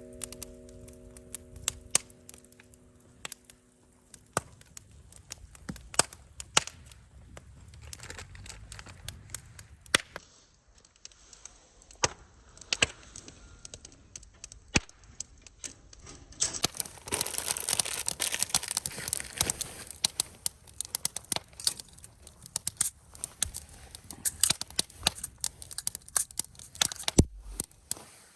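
Irregular sharp crackling snaps over a soft rustling, from a wood campfire with coffee beans being hand-roasted over it in a mesh roaster. The snapping gets denser and louder a bit past halfway.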